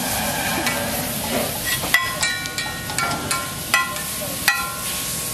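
Sliced onions and spice sizzling on a large flat iron griddle as a metal spatula scrapes and tosses them. Several sharp, ringing clanks of the spatula striking the griddle come in the middle.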